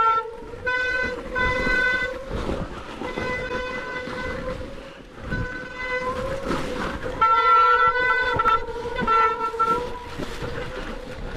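E-mountain bike riding down a rough, snowy trail. A high, pitched buzz from the bike comes and goes in stretches of one to two seconds over a steady lower tone, with frequent knocks and rattles from the bumps.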